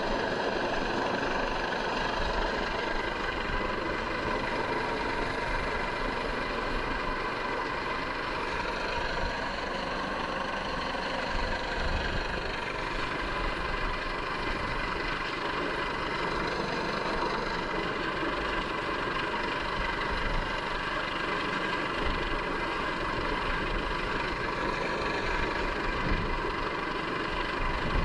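MH-65 Dolphin helicopter hovering overhead: steady turbine whine and rotor noise, with a gusty low rumble underneath.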